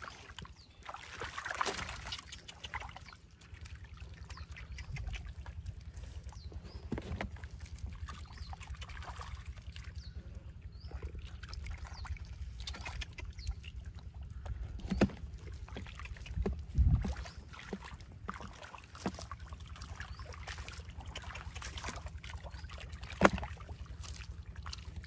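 Hands squelching and sloshing through wet mud and muddy water while grabbing catfish, with scattered small splats and a few sharper slaps. A steady low rumble runs underneath.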